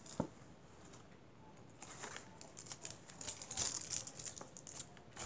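Paper gift bag rustling and crinkling as a hand rummages inside it for an item, in a run of short crackles starting about two seconds in.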